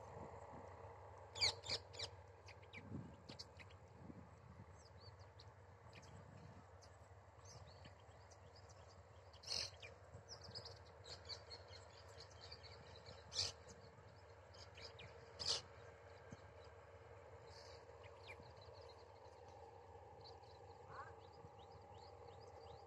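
Faint steady drone of a distant combine harvester working the field, with a few short, sharp bird calls scattered over it.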